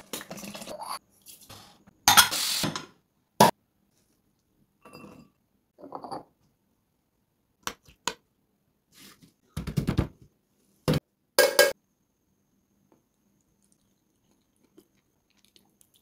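Food-prep sounds in short separate bursts with silent gaps: a few seconds of noisy stirring or pouring over the biryani pot, then sharp clinks and scrapes of a metal spoon mixing raita in a glass bowl, falling almost silent for the last few seconds.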